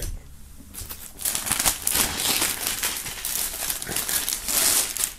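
Plastic shrink-wrap film being pulled off an LP record sleeve and crumpled. It makes a dense crinkling and crackling that starts about a second in.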